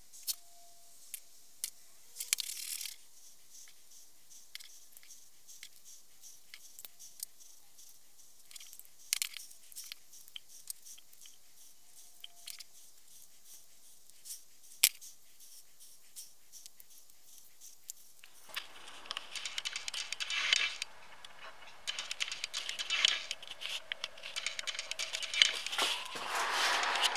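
Faint clicks, taps and rustles of gloved hands handling knife-handle parts while gluing them up with epoxy. About two-thirds of the way through, a louder rustling, scraping noise with knocks sets in.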